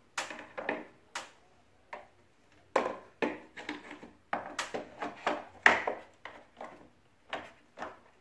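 A dozen or so irregular plastic knocks and clicks as the replacement blower motor is pushed and seated into its mount in the air conditioner's indoor unit, the loudest knock a little before six seconds in.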